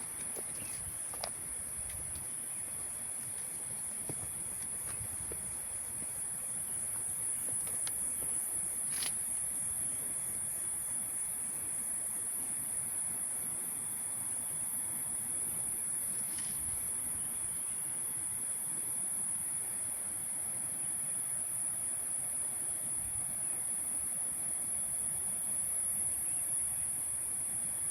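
Continuous high-pitched chorus of tropical forest insects, holding steady throughout, over a faint background hiss. Two brief sharp sounds stand out, about nine and sixteen seconds in.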